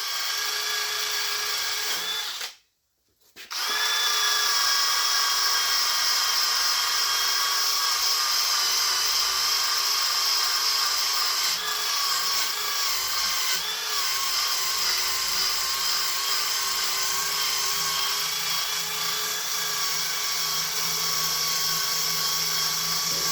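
Electric drill spinning a wire wheel against the rusty cast-iron bed of an 8-inch jointer, scrubbing off rust: a steady motor whine with a high rasp. It cuts out briefly about two and a half seconds in, then runs on steadily.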